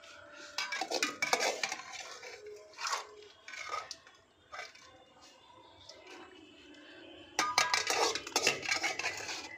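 Metal spoon scraping and clinking against steel and aluminium cookware as masala is spooned onto boiled pasta in a kadai. It comes in short clusters of clinks, with a longer, denser run of scraping near the end.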